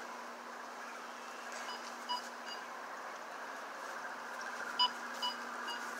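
Toy laser tag blasters giving short electronic beeps: a couple about two seconds in and three more close together near the end, over a steady low hum.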